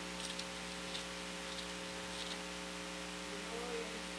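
Steady electrical hum with several even overtones from the church sound system, with a few faint soft ticks over it.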